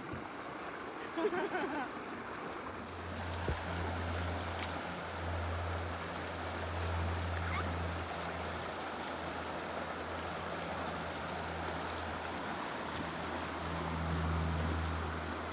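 Rushing river water through rapids, a steady even rush. About three seconds in, a steady low hum joins it.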